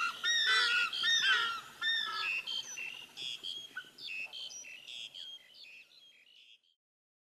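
Birds calling: a dense run of short, repeated calls that thins out and fades away over about six seconds, then stops.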